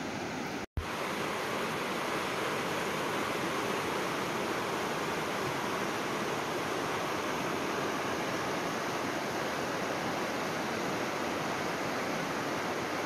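Shallow, rocky river rapids rushing steadily over stones, a continuous even roar of water. It breaks off for an instant just under a second in.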